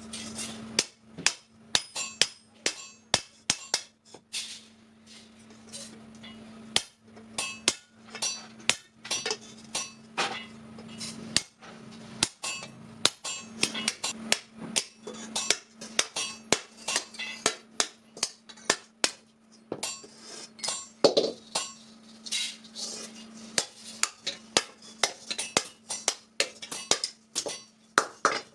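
Hand hammer striking an iron kadai on an anvil, a long run of sharp ringing metal blows at an irregular pace of about two to three a second, over a steady low hum.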